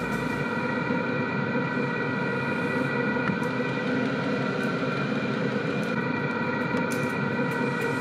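Chinese diesel air heater running at full power: a steady whir from its combustion-air and heating-air blowers, with a whine over it.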